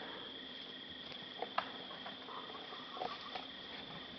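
Steady, high-pitched chirring of crickets holding one even pitch, with a few faint clicks over it.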